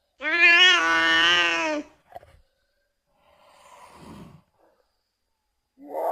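A cat's long, wavering meow. Some seconds later comes a faint, breathy exhale.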